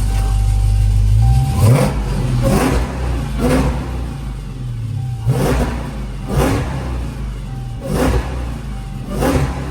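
Supercharged 6.2-litre Hemi V8 of a Dodge Charger Hellcat with catless mid pipes, idling and then revved in a series of short throttle blips, about one a second. It is very loud; the owner hears a rattle and takes it for an exhaust leak at the new pipes.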